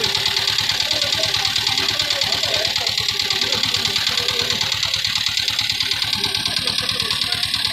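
Boat engine running steadily at idle with a rapid, even knocking beat.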